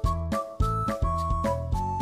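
Background music: a bright keyboard melody over a steady bass beat of about two beats a second.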